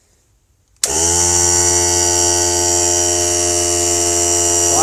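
Central Pneumatic 3-gallon oilless pancake air compressor switched on cold, starting at once about a second in with no struggle, then running steadily with a loud hum and a high whine.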